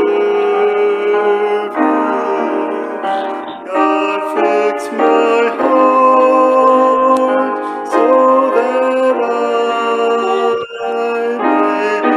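A man singing a slow hymn with piano accompaniment, in held notes that change every second or so. The sound is thin, with no bass.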